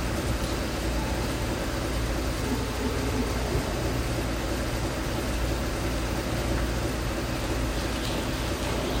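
Steady background hum and hiss with no distinct sound standing out.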